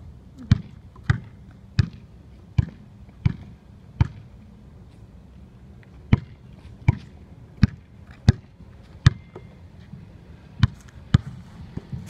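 A basketball being dribbled on hard ground, one bounce about every three-quarters of a second. Six bounces, a pause of about two seconds, five more, then two quicker ones near the end.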